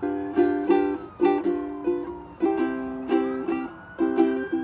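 Ukulele strummed in a steady repeating chord pattern, several quick strokes a second.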